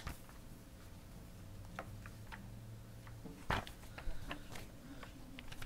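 Quiet room tone from a meeting-room microphone: a low steady hum with a few faint clicks, and one brief louder knock-like sound about three and a half seconds in.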